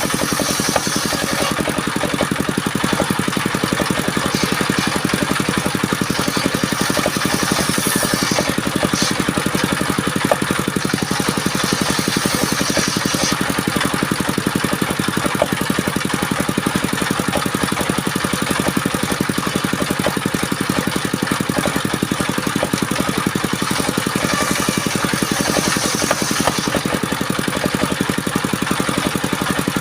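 Engine-driven wood-cutting saw machine running steadily, with a few stretches of added high hiss lasting a second or two.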